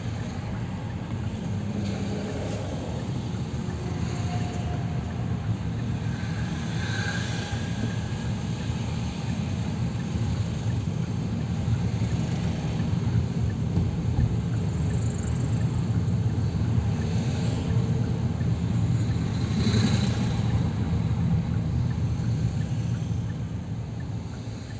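Steady low car engine and road rumble heard from inside the cabin while creeping along in traffic. It swells gradually through the middle and eases off near the end.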